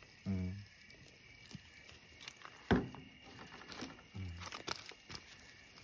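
Mostly quiet, with one sharp knock a little before the middle and two brief snatches of a voice, one near the start and one about four seconds in.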